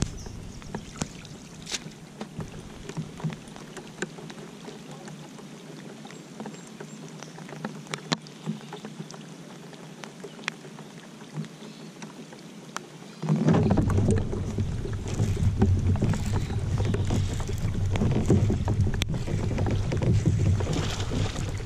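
Quiet on-the-water noise from a pedal-drive kayak with scattered light ticks. About 13 seconds in, a louder uneven low rumble starts abruptly and keeps going as the kayak gets under way.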